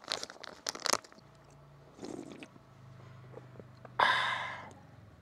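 A man chewing a spicy Thai snack stick, with crisp crunching clicks in the first second. A low, steady hummed "mmm" follows. About four seconds in he lets out a loud breathy "haa" exhale that fades quickly, reacting to the spiciness.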